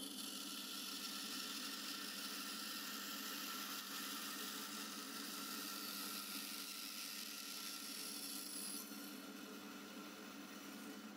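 Bandsaw running and cutting through a wooden hammer handle blank: a steady hiss of the blade in the wood over the hum of the machine. The cutting hiss drops away about nine seconds in, leaving the saw running.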